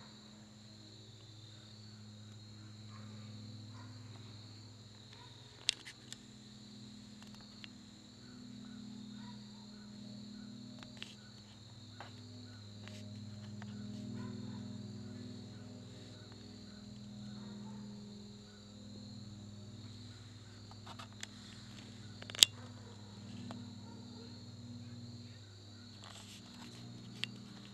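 A steady outdoor insect chorus, an unbroken high-pitched buzz, over a low steady hum. It is broken by a few sharp clicks, the loudest well past the middle.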